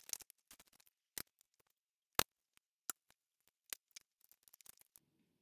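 Scattered clicks and taps of plastic plant pots and plant tags being handled on a countertop. The loudest knock comes about two seconds in, and a run of small ticks follows near the end.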